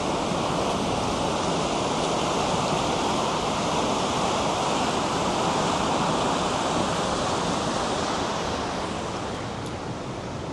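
River rapids rushing: a steady wash of fast-flowing water that eases a little near the end.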